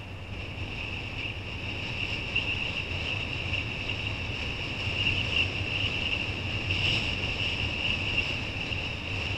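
Wind buffeting the microphone and water rushing under a kiteboard riding over choppy sea, heard as a low rumble under a steady high hiss.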